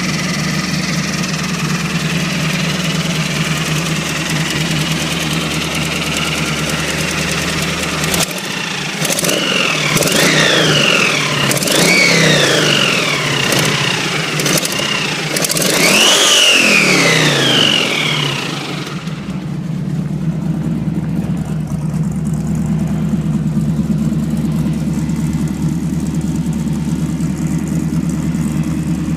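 1986 Camaro's 355 small-block V8 idling, then revved several times in quick blips from about 8 seconds in until about 19 seconds, each rev rising and falling in pitch, before settling back to a steady idle. The car has an exhaust leak.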